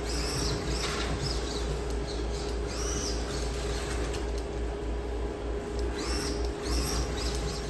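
1/32 Scalextric slot car running around a plastic track with a steady electric whine and hum, with short high squeaks repeating as it goes through the hairpin curves. The squeaks drop away for a couple of seconds past the middle, then return.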